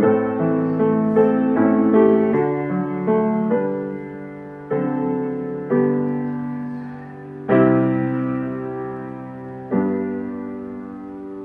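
Piano playing a slow closing passage. Quick notes and chords at first give way to single struck chords a second or two apart, each left to die away, the last one fading out.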